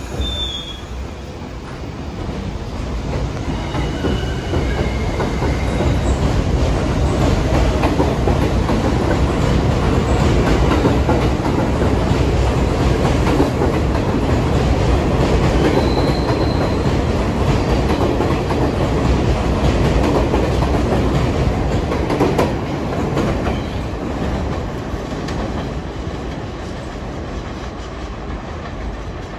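New York City subway train running through an elevated station, its wheels clacking over the rail joints with a few brief faint squeals. It grows louder over several seconds, holds, then fades away near the end.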